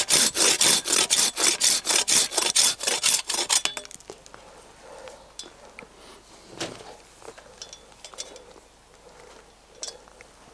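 Small hand pruning saw cutting through a live tree branch in quick, even back-and-forth strokes, which stop about three and a half seconds in as the branch is cut through. Faint handling clicks and rustles follow.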